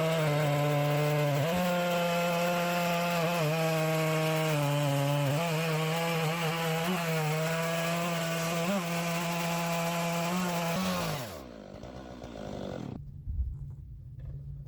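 Stihl chainsaw in an Alaskan chainsaw mill running at full throttle, ripping lengthwise through a small ash log; the steady high engine note dips slightly a few times under load. About eleven seconds in the throttle is released and the engine note falls away, leaving much quieter sounds.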